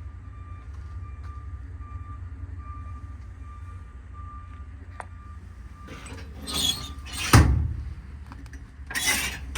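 A metal service-body compartment door being swung shut: a rustle and swish, then a sharp bang as it closes, about seven seconds in, over a steady low rumble.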